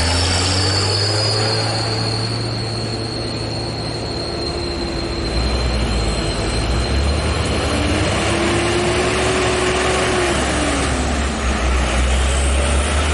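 Heavy truck engine running with a deep, steady drone, joined over the first five seconds or so by a high-pitched squeal that slowly drops in pitch.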